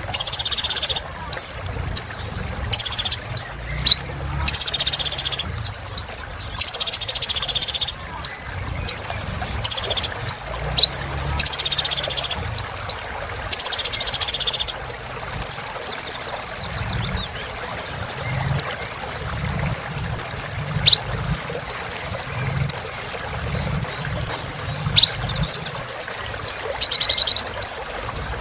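Kolibri ninja (a sunbird) singing vigorously: a fast, unbroken run of high, thin chirps and trills, with bursts of rapid chattering between them. A steady low hum sits underneath.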